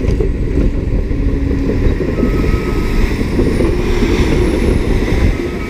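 Cat D7E diesel-electric bulldozer running close by under load, its tracks moving as the blade pushes a pile of soil. The sound is loud and steady.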